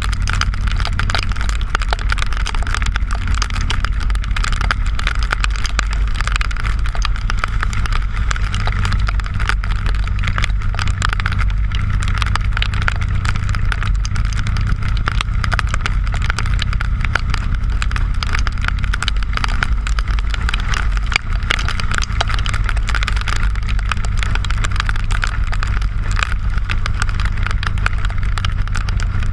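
Harley-Davidson V-twin motorcycle engine running steadily at highway cruising speed, heard through a bike-mounted action camera, with a steady hiss of wind and tyres on the rain-soaked road.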